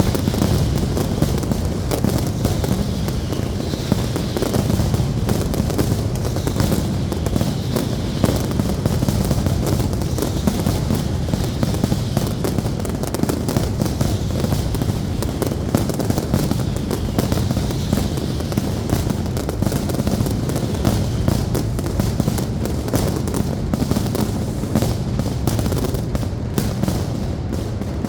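Aerial fireworks display: a dense, continuous barrage of bangs and crackling, with faint whistles gliding through it now and then.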